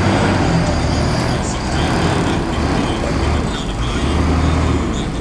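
Heavy diesel engine of earthmoving machinery running steadily with a low drone.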